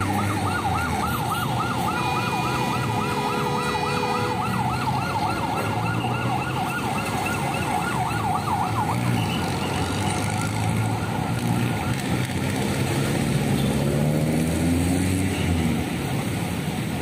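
Emergency vehicle siren in a fast yelp, its pitch sweeping up and down about four times a second, dying away about nine seconds in. Under it runs a steady traffic rumble, and a vehicle engine rises in pitch near the end.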